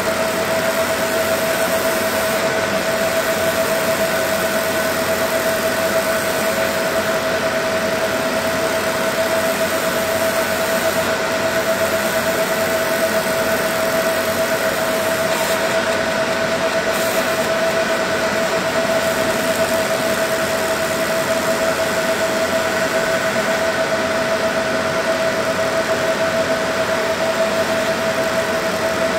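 Laser engraver running as it burns a design into a pumpkin's skin: a steady machine hum with a constant mid-pitched whine.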